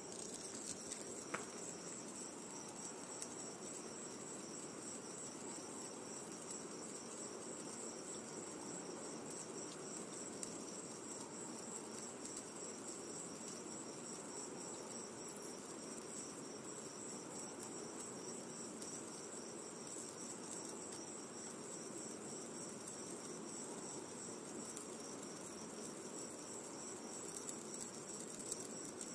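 Crickets chirping in a steady, high, finely pulsing trill, with a faint even hiss beneath and an occasional faint click.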